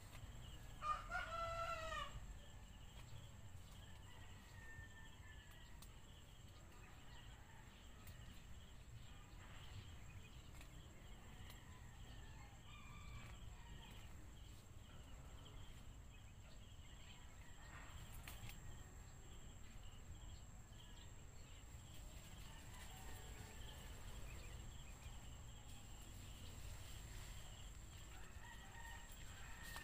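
A rooster crows once, about a second in, as one wavering call lasting about a second. After it come faint outdoor ambience, a thin steady high-pitched tone and a few short faint chirps.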